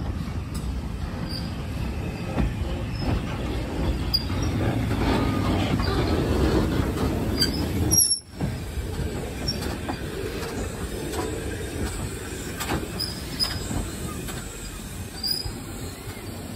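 BR Standard Class 4 2-6-0 steam locomotive 76017 running slowly past, tender first: a steady rumble of wheels on the rails with small squeaks, growing loudest as the engine draws level. The sound cuts out for a moment about halfway through.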